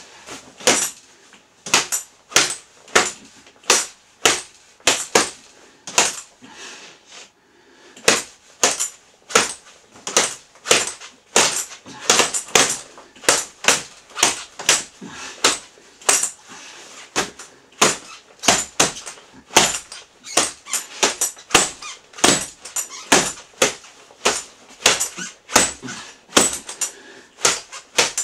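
A person breathing hard and fast through a gas mask and its breathing hose, each breath a short sharp hiss, about two a second. There is a brief lull around six to eight seconds in.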